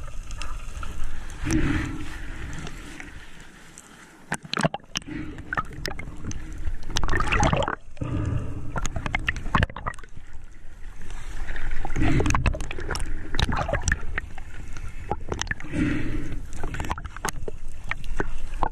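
Muffled underwater noise heard through an action camera's waterproof housing: water rushing and rumbling past in uneven surges every few seconds, with scattered clicks and knocks. The sound drops away for about a second near the fourth second.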